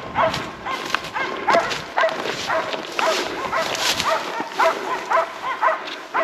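A hunting laika barking steadily at bay, about three barks a second, holding game it has found, which proves to be a moose. Footsteps crunch and rustle through dry grass close to the microphone.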